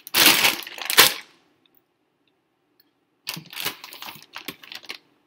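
Clear plastic grain spawn bags full of mycelium-bound rye crinkling and rustling as they are grabbed and moved, in two bursts: the first with a sharp crack about a second in, the second a run of crinkles and clicks a couple of seconds later.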